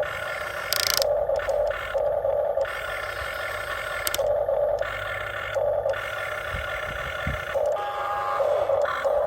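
Electric motors of a Huina RC excavator whining in short bursts that start and stop every second or so, as the machine's functions are worked.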